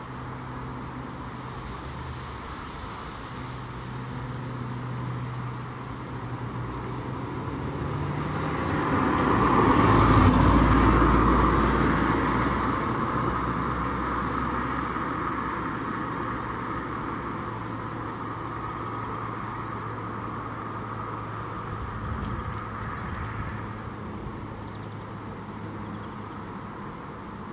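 Road traffic: a motor vehicle passes, its sound swelling to a peak about ten seconds in and then slowly fading, over a steady low hum of traffic.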